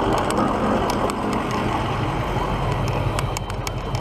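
Road traffic heard from a bicycle passing close between lanes of queued cars, trucks and a bus: the engines' steady low hum under a wash of traffic noise, with a few light clicks.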